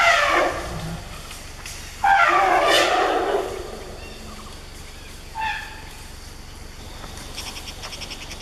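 Asian elephants trumpeting: three loud calls. The first falls in pitch over about a second, a longer one starts about two seconds in, and a short one comes about five seconds in. A fast high trill follows near the end.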